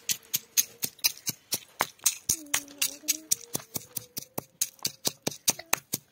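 Stone pestle pounding red chillies in a hollowed stone mortar: rapid, sharp stone-on-stone knocks, about six or seven a second.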